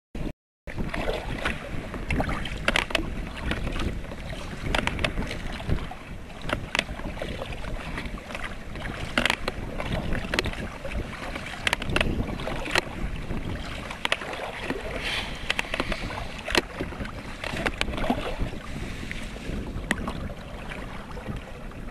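Water sloshing and slapping against a kayak, with wind buffeting the microphone and frequent short, irregular knocks.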